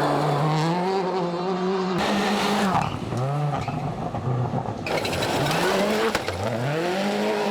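A World Rally Car's turbocharged four-cylinder engine revving hard, its pitch climbing and then dropping at each gear change, easing off briefly in the middle before a quick run of upshifts near the end.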